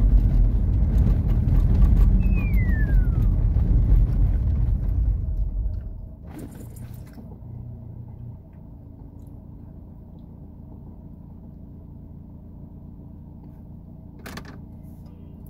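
Car cabin noise: low engine and road rumble while the car rolls downhill, falling away sharply about six seconds in as the car slows to a standstill, leaving a quieter steady engine idle hum. A short falling whistle sounds about two seconds in.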